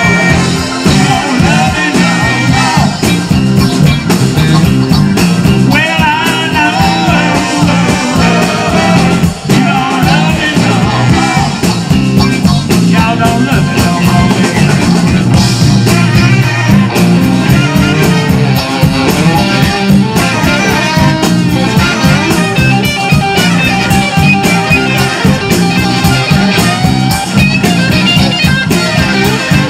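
Live rock band playing, with electric guitar, bass, drums and organ, and singing over it.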